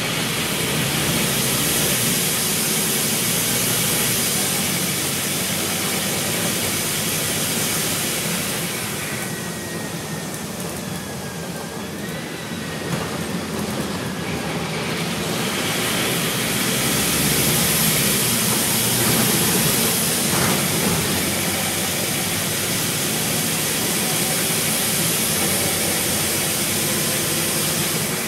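Cabin sound of a Scania N230UB single-decker bus under way: diesel engine running under steady road and tyre noise. The noise swells, eases off about a third of the way in with a faint whine, then builds again as the bus gathers speed.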